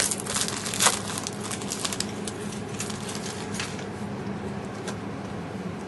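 Foil trading-card pack wrappers crinkling and tearing, loudest in the first two seconds, then fainter crinkles and a few light clicks as the cards are handled.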